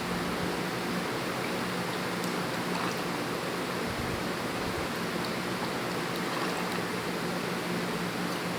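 Steady rush of seawater, with a faint low hum underneath.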